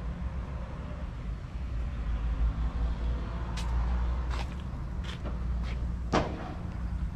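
Hydraulic power unit of a scissor lift table running with a steady low hum. Several sharp clicks and knocks come in the second half, the loudest about six seconds in.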